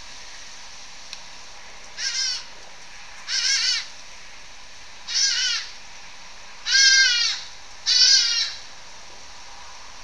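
Five loud, shrill animal calls, each about half a second long and bending in pitch, over a steady hiss; the last two are the loudest.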